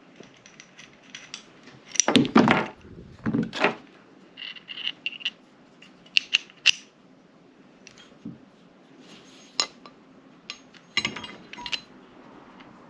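Metal clinks, clicks and short clatters of a sight pusher tool being worked and handled on a Glock 17 pistol slide, in irregular bursts, heaviest about two, three and a half, and eleven seconds in.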